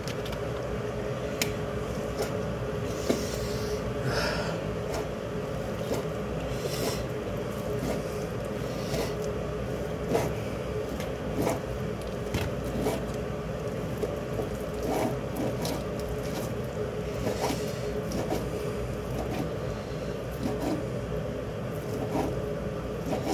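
Kitchen knife cutting raw chicken breast on a plastic chopping board: irregular taps and knocks of the blade against the board, spaced a second or so apart, over a steady background hum.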